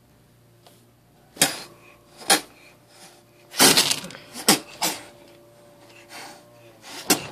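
Black-and-white kitten spitting and hissing, about seven short sharp spits with gaps between, the loudest run in the middle. This is the defensive warning of an upset kitten being handled.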